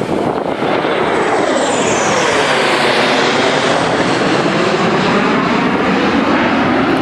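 Formation of four jet fighters flying overhead: a loud, steady jet-engine roar that swells in about a second in, with a whooshing tone that slides down in pitch as they pass.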